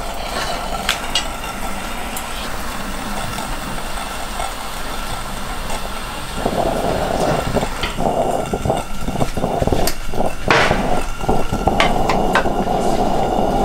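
Red 1961 Coleman pressure lantern burning with a steady hiss, which gets louder about six seconds in. Several sharp clicks and knocks of the lantern being handled around eight to twelve seconds in.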